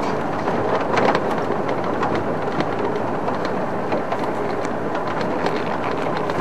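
Safari game-drive vehicle running on a bush dirt track: steady engine and road noise with scattered small rattles and knocks.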